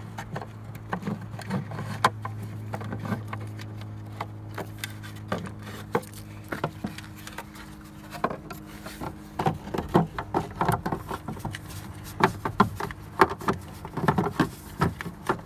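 Hands handling and fitting plastic tail-lamp parts and bulb sockets: irregular clicks and knocks, coming thicker in the second half. A steady low hum underneath stops about seven seconds in.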